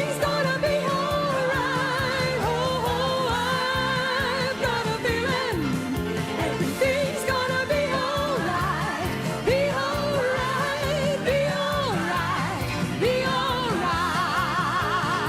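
Recorded Christian pop song playing: a singer with a wavering, vibrato-laden voice over full band accompaniment.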